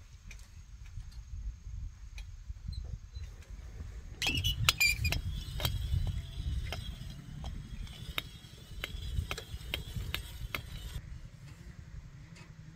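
Rusty metal pulley squealing and clicking as a rope runs through it. The clicks come about twice a second, from about four seconds in until they stop abruptly near the end, over a low steady rumble.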